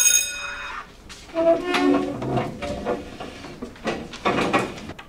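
Electric school bell ringing and cutting off within the first second. Then students get up from their desks: chair legs scrape, there is shuffling, and a few voices are heard indistinctly.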